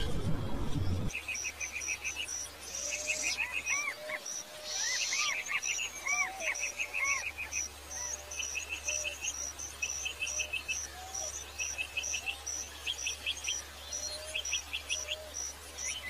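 Rainforest ambience of birds and insects: a steady rhythm of high pips, short chirping trills in small groups, and arching whistled bird calls. A low music passage cuts off about a second in.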